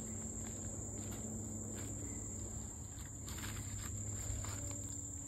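Steady high-pitched insect chorus, with footsteps rustling through grass and weeds.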